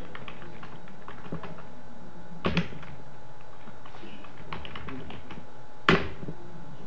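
Computer keyboard typing: quick runs of light keystrokes, a harder double keystroke about two and a half seconds in, and one sharp, loud keystroke near the end.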